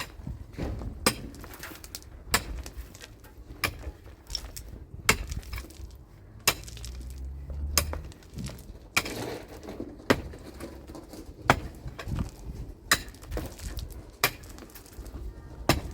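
Hammer blows struck at a steady pace, one sharp strike about every second and a half.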